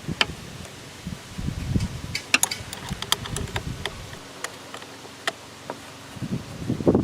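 Spanner working the nut on a car battery's negative terminal clamp: a series of irregular metallic clicks and small knocks as the nut is loosened.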